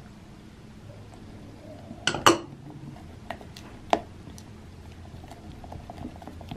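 Glass dishware clinking: two sharp clinks close together about two seconds in, then a silicone spatula stirring thick pancake batter in a glass measuring cup, with a few lighter clinks against the glass.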